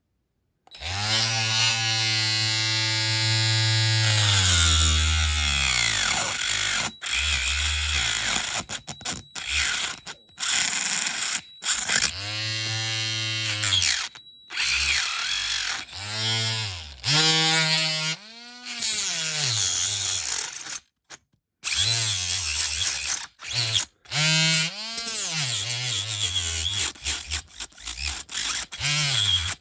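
Small handheld rotary tool cutting into a diecast metal car body. Its motor whine keeps sagging and climbing in pitch as it is worked, with several brief stops.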